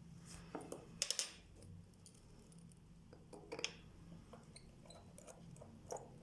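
Small metal clicks and taps of watchmaker's tools and tiny watch parts on a bench during disassembly of a watch movement: a quick cluster about a second in, another about three and a half seconds in and a single click near the end, over a faint low hum.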